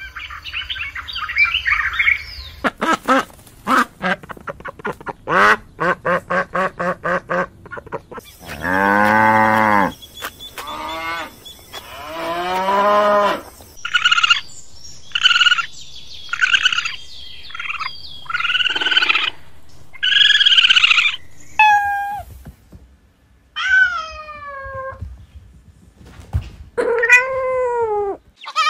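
A string of different animal calls, one after another with short gaps: a run of rapid clicks, then longer pitched calls, then calls that fall in pitch near the end.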